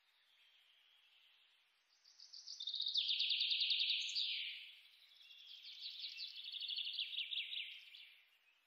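Felt-tip marker squeaking and scratching on paper in quick back-and-forth colouring strokes, in two spells of a few seconds each, the first the louder.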